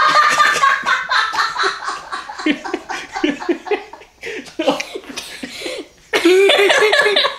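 People laughing hard in repeated bursts, with a fresh outburst of laughter about six seconds in.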